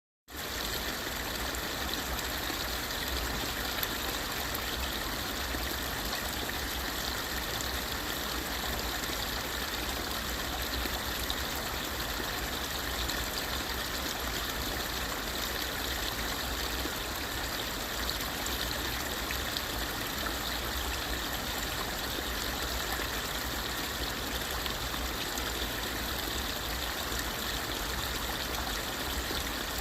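Stream water trickling and running steadily, an even rushing wash with no breaks.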